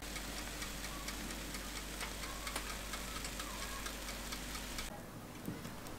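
Oven running with a steady low hum and faint ticking and crackling as the egg-washed börek bakes inside. The hum stops about five seconds in.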